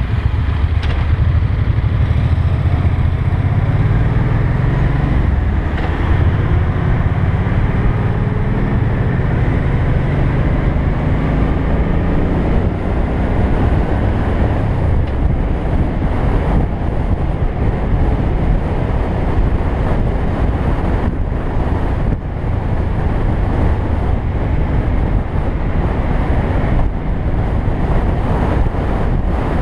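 Motorcycle engine accelerating, its pitch climbing for several seconds, then running steadily at road speed, with heavy wind rumble on the microphone.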